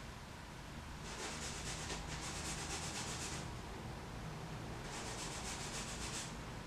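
Paintbrush scrubbing yellow ochre oil paint onto a sanded, gesso-primed canvas in rapid short strokes, in two bouts: one of about two seconds starting a second in, and a shorter one near the end.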